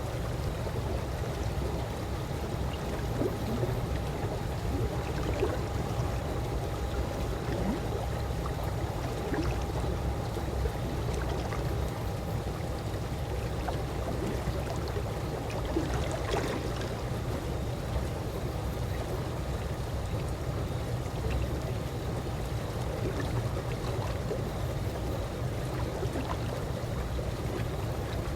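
Calm swimming-pool water lapping and trickling steadily over a low rumble, with small scattered splashes.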